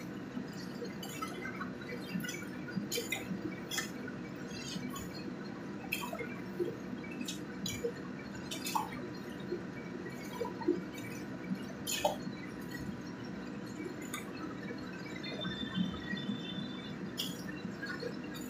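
Snails in sauce bubbling and sizzling in a wok over a steady hiss, with irregular pops and a metal spatula clinking and scraping against the wok.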